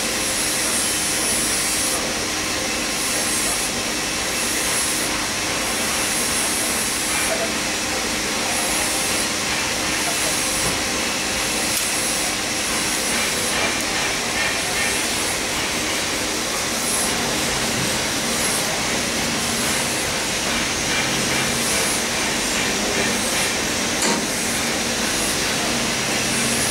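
Steady loud rushing noise with a few faint steady tones, like a fan or blower running, unchanged throughout.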